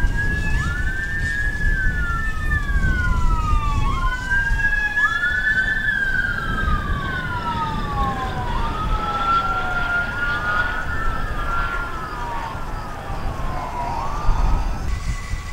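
Sirens of passing police and emergency vehicles in wail mode, two sounding at once out of step. Each rises quickly and then glides slowly down, repeating every two to three seconds over a low rumble. The sirens fade and stop near the end.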